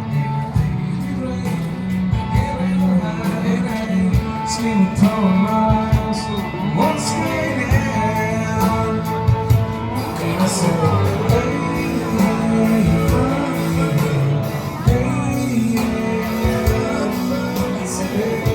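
Music: a song with a singing voice over instruments, playing steadily throughout.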